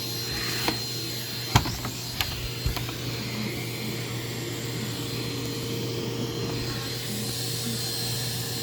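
Vacuum cleaner running steadily, sucking up cookie crumbs from the floor, with a few sharp clicks in the first three seconds as bits of debris rattle up the nozzle.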